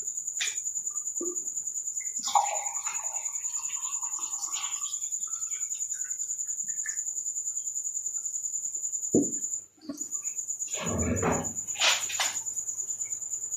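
A cricket chirping steadily in a fast, even, high-pitched pulse, with short bursts of a person chewing and eating over it; the loudest eating noises come about two-thirds of the way through, just around a brief dropout in the audio.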